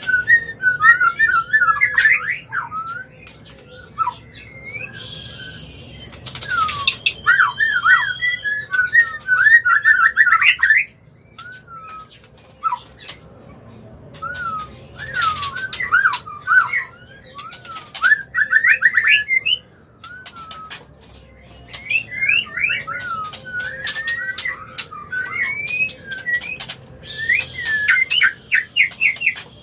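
White-rumped shama (murai batu) in breeding condition calling: rapid runs of short, sweeping chattering notes mixed with sharp clicking ticks. Two harsh hissing rasps come about five seconds in and again near the end.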